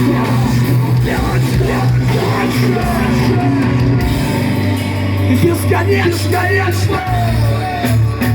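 Live heavy rock band playing loud, with distorted guitars and bass holding long low notes; a voice comes in singing near the end.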